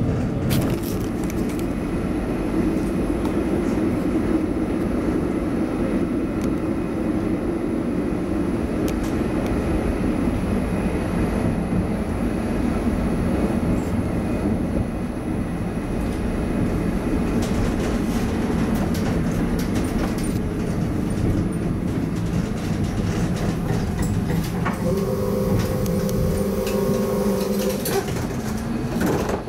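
Electric tram running along street track, heard from inside the passenger cabin: a steady low rumble of wheels on rail and car body, with scattered clicks and knocks. Near the end a steady electric motor hum sets in for a few seconds.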